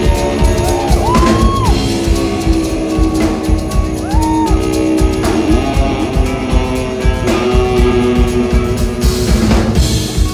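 Rock band playing live and loud: drum kit keeping a steady beat under electric guitars, with several notes sliding up and down in pitch.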